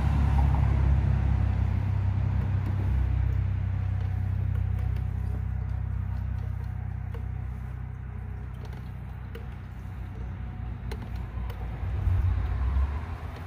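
Low rumble of road traffic on a highway bridge, easing off over several seconds and swelling again briefly near the end, with a few faint light clicks.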